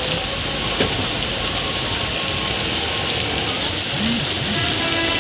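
Heavy rain falling steadily, a dense even hiss of rain.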